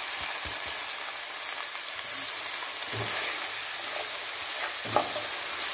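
Raw rice sizzling as it hits hot pork fat in an aluminium pot and is stirred through, with a couple of light knocks.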